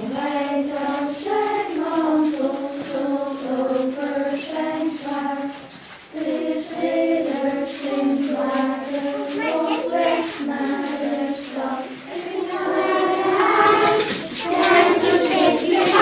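A group of children singing a song together in unison, with a short pause about six seconds in; the singing grows louder and fuller near the end.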